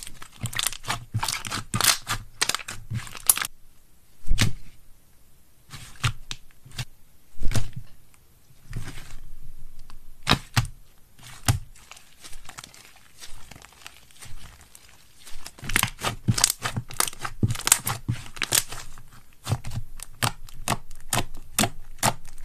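Slime being stretched, pulled apart and pressed by hand, crackling and popping in quick runs of sharp clicks with sparser pops between.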